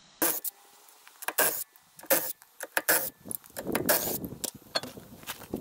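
Irregular sharp metal clicks and clanks, more than a dozen scattered over a few seconds, as of tools and jack parts being handled.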